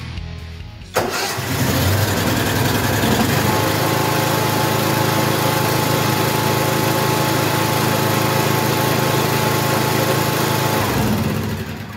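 Briggs and Stratton engine on a zero-turn mower starting suddenly about a second in, settling, then running steadily after its valve guide repair; the sound eases off near the end.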